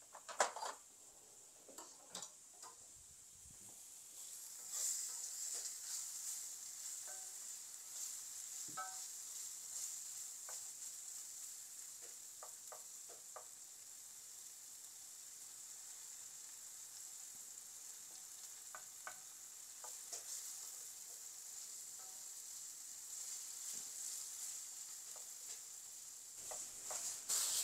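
Wood fire in a fireplace, just lit: a faint steady hiss with scattered sharp crackles and pops.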